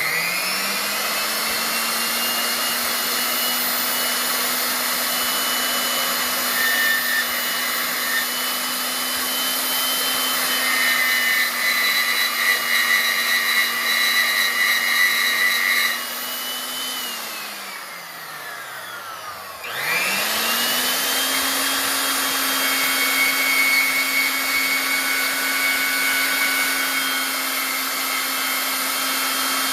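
Klutch horizontal metal-cutting bandsaw starting with a rising whine and running steadily as its blade cuts 1.5 by 2 inch rectangular tubing with a 1/8 inch wall. About 17 seconds in the motor winds down with a falling pitch nearly to a stop, then starts again with a rising whine and runs on.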